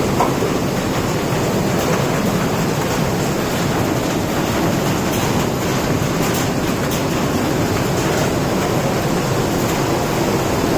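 Rainwater rushing in a steady, loud flow, an even noise that does not change.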